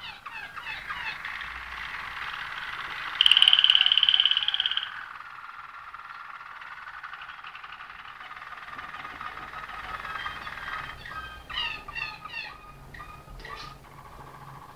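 Malinois (Waterslager) song canary singing a continuous rolling song. A loud, steady high trill comes about three seconds in and lasts nearly two seconds, and a run of quick rising and falling notes follows near the end.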